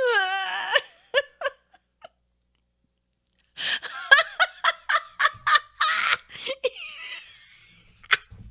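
A woman laughing hard: a high, wavering squeal at the start, a few short bursts, a pause, then a long run of rapid laughter at about four pulses a second that trails off into breathy wheezes.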